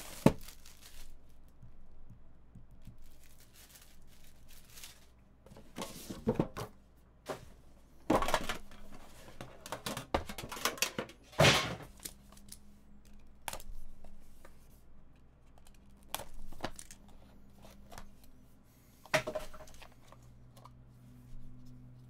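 Plastic shrink wrap and packaging being torn and crinkled off a sealed trading card box, in a handful of separate sharp rips with quieter rustling between them.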